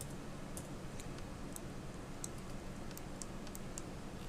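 Light, irregular clicking from a computer keyboard and mouse being worked, a few clicks a second, over a steady low hum.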